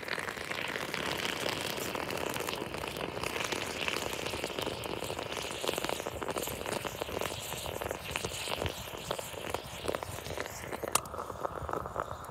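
Aluminium moka pot on a wood fire, gurgling and sputtering as the coffee comes up into the upper chamber, mixed with the crackle of the burning wood. A sharp click about eleven seconds in, as the lid closes, after which the sound is duller.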